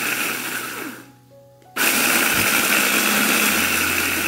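Mitochiba electric food chopper grinding dried red chillies. Its motor cuts out about a second in and starts again under a second later, then runs steadily.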